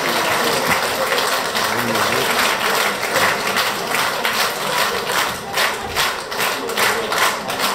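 Audience applauding, the clapping falling into an even rhythm of about three claps a second in the second half.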